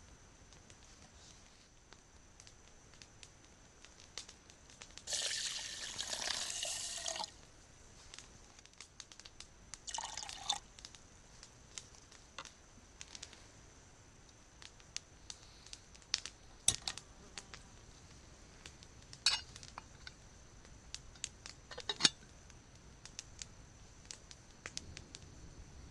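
Rice cooking in a steel pot on a gas canister stove: about five seconds in, a couple of seconds of pouring, grainy noise, then scattered small clicks and drips. Toward the end come a few sharper metal clinks as the lid is set on the pot.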